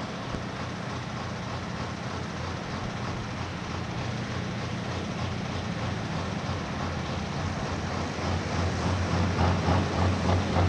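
Turbocharged pro stock pulling tractor's diesel engine running, growing steadily louder, then pulsing about twice a second near the end.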